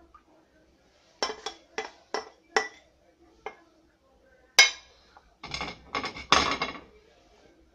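A spatula scraping and knocking tomato sauce out of a bowl into a pan: a run of four or five quick strokes, one sharp click about halfway, then a burst of longer scrapes near the end.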